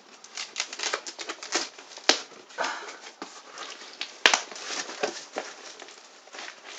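A key scraping and slicing through packing tape on a cardboard box, and a box flap being pulled open: irregular scratchy rasps and rustles, with two sharp clicks about two and four seconds in.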